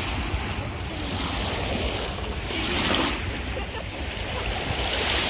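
Small Baltic Sea waves washing onto the beach, their hiss swelling about three seconds in and again at the end, over a low rumble of wind on the microphone.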